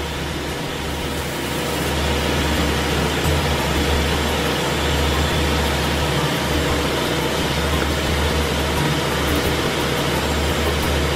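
Steady drone of ship's engine-room machinery: a strong low hum under an even hiss, with no breaks.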